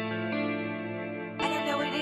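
Instrumental intro of a rap song's beat: sustained chords with echo effects. About one and a half seconds in, a higher, bending melody joins, along with a bright high-pitched layer.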